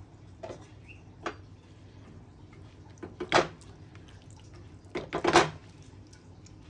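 Spatula stirring a thick curry in a metal kadai, with a few short knocks and scrapes against the pan, the loudest about three and a half seconds and five seconds in.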